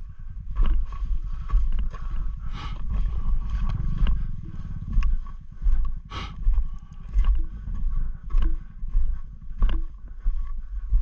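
Motorcycle engine pulling at low speed over rough ground, the throttle opened and eased off again and again so the rumble swells and drops about once a second, with scattered knocks from the bike going over stones.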